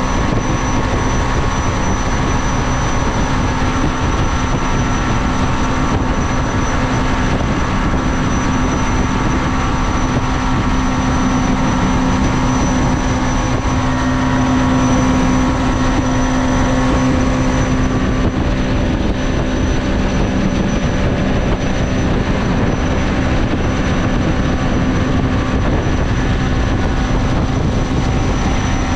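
Mini jet boat's engine running at a steady throttle under way: a constant drone over a steady rush of noise, with no change in speed.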